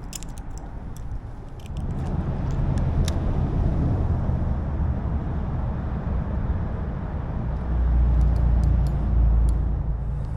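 An engine running steadily, getting louder for a couple of seconds near the end, with scattered light clicks and taps over it.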